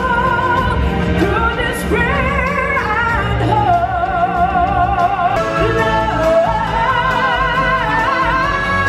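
Singers in a live stage musical holding long notes with vibrato and changing pitch every second or two, over instrumental backing, heard from the audience in an arena theatre.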